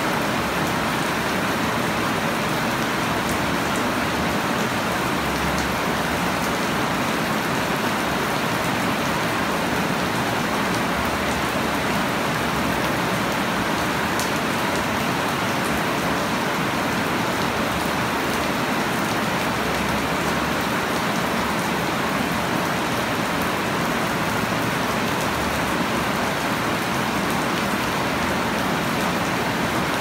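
Heavy rain falling steadily on grass-like leaves and bare wet soil, an even, unbroken wash of drops.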